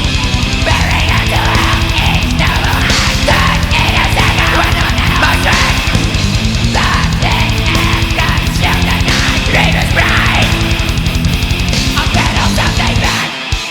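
Black/death metal song: distorted electric guitar riffing over very fast, relentless kick drumming, with the low end and drums dropping out briefly near the end.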